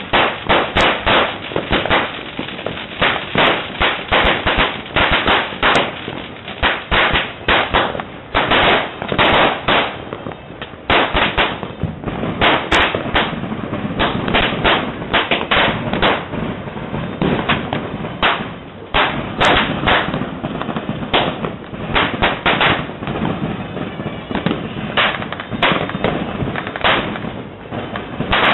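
Firecrackers and fireworks going off in rapid, continuous succession: loud, sharp bangs and crackles, several a second, in clusters with only brief lulls.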